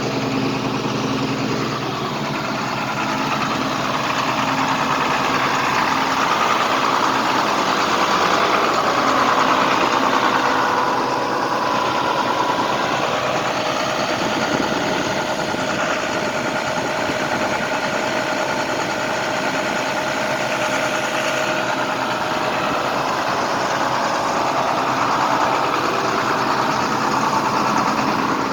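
International DT466E inline-six diesel of a 2005 IC CE school bus idling steadily with its muffler deleted, warming up after a cold start.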